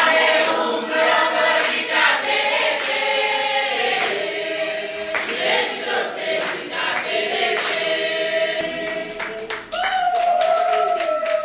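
A group of voices singing a song together, with scattered hand claps, ending on a long held note.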